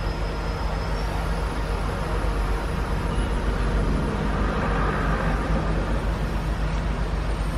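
Steady diesel engine drone of a large crawler crane, the Tadano AR5500M, running under lifting work.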